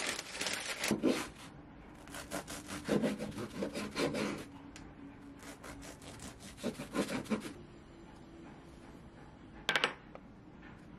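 Knife sawing back and forth through a crusty cheese-topped bread on a wooden cutting board, in runs of quick rasping strokes with pauses between them; the blade has trouble getting through the crust. A single sharp knock near the end.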